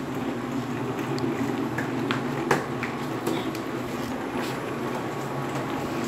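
Plastic wheels of a child's ride-on toy rolling over a stone tile floor: a steady rumble with a few sharp plastic clicks.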